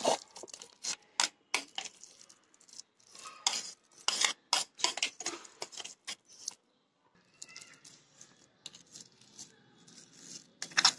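A spoon scraping and knocking against a mixer-grinder jar while ground soya-chunk paste is scraped out: irregular clicks and taps, with a short pause about two-thirds of the way through.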